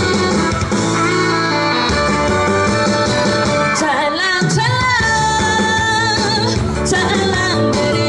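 A woman singing a Korean trot song into a microphone over an amplified band accompaniment, her wavering, vibrato-laden melody most prominent from about four seconds in.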